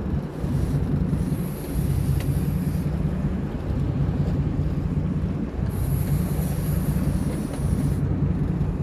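Sportfishing boat's engine running steadily with a low rumble, with wind on the microphone and a high hiss that comes and goes.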